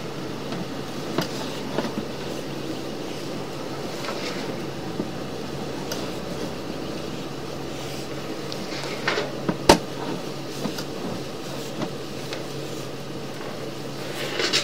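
Sewer inspection camera rig in use: a steady machine hum with scattered light clicks and knocks as the push cable is worked back through the line, and one sharp knock about ten seconds in.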